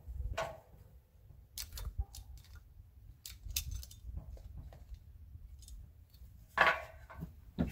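Scattered metal clicks and light knocks of hand tools being handled at a tool belt, locking pliers clinking against each other as a hammer is moved about, with one louder knock about six and a half seconds in.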